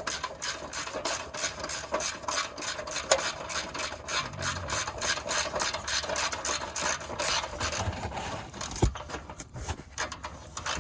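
Ratchet wrench clicking rapidly as a bolt on the car's exhaust is worked loose, the clicks thinning out near the end.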